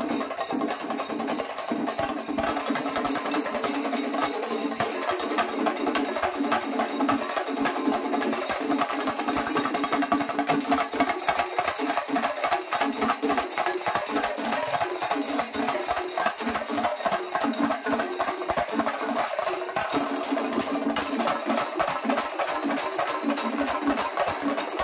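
Shinkari melam ensemble playing: many chenda drums beaten fast with sticks, with ilathalam hand cymbals, a dense, driving rhythm that runs on without pause.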